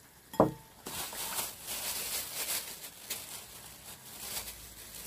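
A clear plastic bag rustling and crinkling as it is handled, a dense crackle for several seconds, briefly letting up near the end before starting again. A short, loud knock comes about half a second in, before the crinkling.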